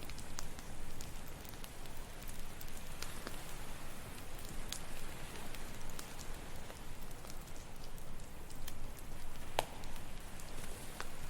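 Campfire crackling, with sharp irregular pops of burning wood and one louder pop near the end, over a steady rush of ocean waves.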